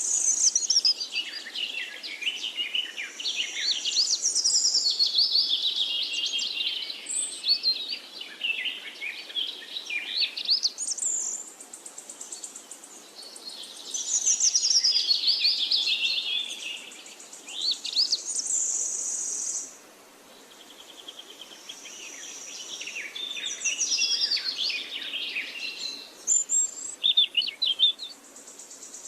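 Songbirds chirping and trilling in quick, overlapping phrases, with a steady high insect buzz fading in and out behind them.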